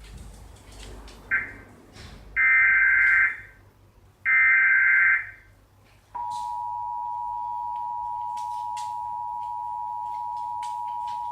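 Emergency Alert System broadcast tones: three SAME header data bursts, a short one about a second in and then two longer ones, each a harsh warbling screech. About six seconds in comes the steady two-tone EAS attention signal (853 and 960 Hz), which marks the start of an alert, here a national periodic test.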